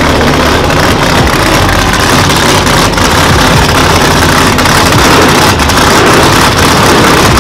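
Drag-racing car's engine idling loudly and steadily while the car creeps forward under its own power.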